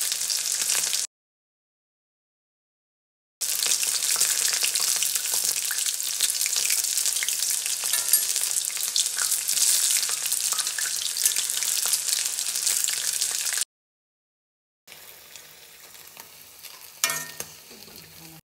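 Batter-coated chicken pieces deep-frying in hot oil in a wok: a dense, steady sizzle that breaks off into dead silence twice. In the last few seconds the sizzle is much quieter, with one short knock.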